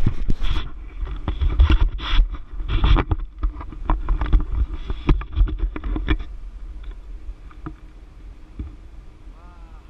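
Wind buffeting the microphone of a handheld camera in flight under a tandem paraglider, with knocks and rubbing as the camera is handled. About six seconds in it settles to a much quieter, steady rush of air.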